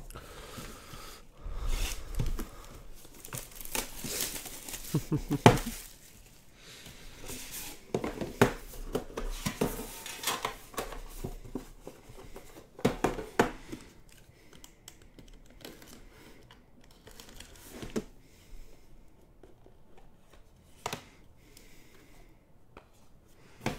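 Plastic wrap being torn and crinkled off a Panini Immaculate Collection baseball card box, then the box opened and its contents handled, with scattered taps and clicks. The handling is busiest in the first half and turns quieter after that.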